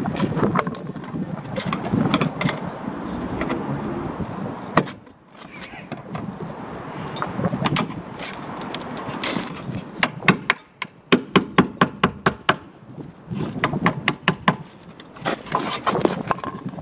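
Rusted steel wheel-arch cover panel being torn and bent away from the car body, crunching and crackling as the rotten metal gives. Past the middle comes a quick run of sharp knocks, with more scattered clicks and knocks toward the end.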